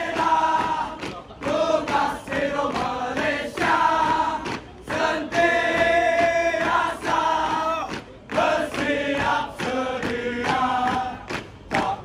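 A large group of male firefighters chanting their 'fire cry' in unison, in phrases with some held notes and short breaks between them.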